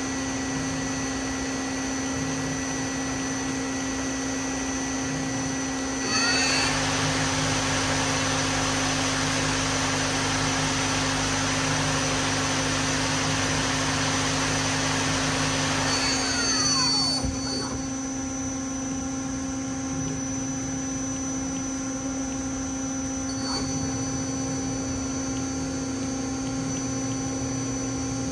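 2000 Mazak SQT-200 CNC lathe running a cycle: a steady machine hum, then about six seconds in the spindle winds up with a rising whine and a loud even rush that lasts about ten seconds. Near the end of the rush the spindle winds down with a falling whine, and the steady hum carries on.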